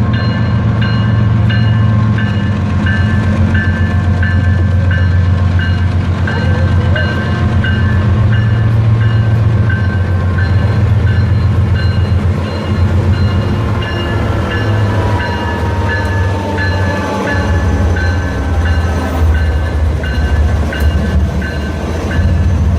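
Train passing close by, its diesel locomotive engine giving a heavy low rumble, with a bell ringing at a steady beat of about one and a half strokes a second. A faint falling tone comes about two-thirds of the way through.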